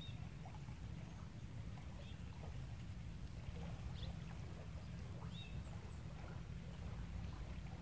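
Riverbank ambience: a steady low rumble with scattered faint bird chirps and a thin, steady high-pitched tone throughout.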